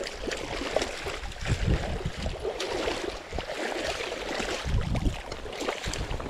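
Shallow lake water sloshing and splashing around a landing net that holds a trout, with a few low gusts of wind on the microphone.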